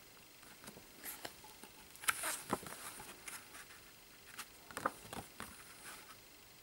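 Stiff cardboard photo cards handled by hand on a tabletop: faint sliding and light taps of card on card as they are flipped through, in a handful of short scrapes.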